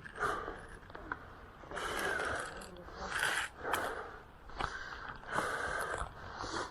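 A person breathing hard in short noisy bursts, about one a second, with rustling and crunching of movement.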